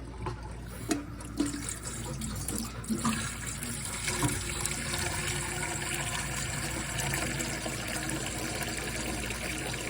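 Water tap running into a dog's water bowl, filling it. A few light knocks come first, and the water starts about three seconds in and runs steadily.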